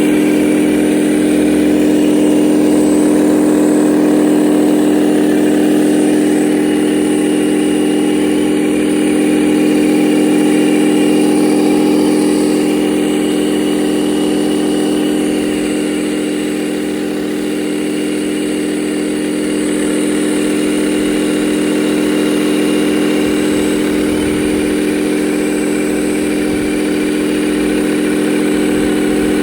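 Steady mechanical drone of a radio-controlled hydraulic construction model running, holding one constant pitch with a faint high whine above it.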